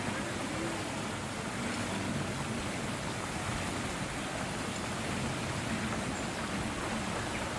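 Steady rushing wind with a low rumble of wind buffeting the microphone.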